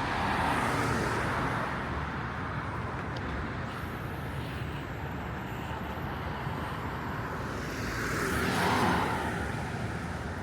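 City traffic: a steady hum of road noise with two vehicles going by, one at the start and a louder one about eight to nine seconds in.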